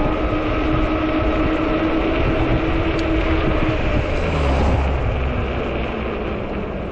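Wind buffeting the microphone over a steady hum from a 48 V fat-tire e-bike in motion; the hum fades out about four seconds in.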